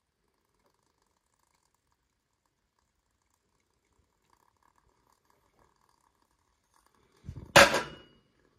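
Near silence, then near the end a metal bowl set down upside down over the burning alcohol stove onto a metal tray: one short metallic clank with a brief ring.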